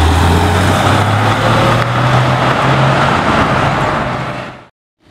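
Porsche 911 flat-six engine accelerating past close by, its note climbing steadily in pitch. It fades out quickly near the end.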